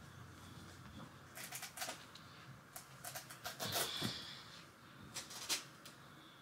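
Soft rustling and patting of fabric in short clusters: pillows and a stuffed toy being arranged on a bed as it is made.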